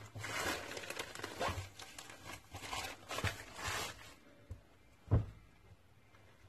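Plastic courier mailer bag rustling and crinkling as a folded T-shirt is pulled out of it, for about four seconds. Then it goes quiet, apart from a single dull thump about five seconds in.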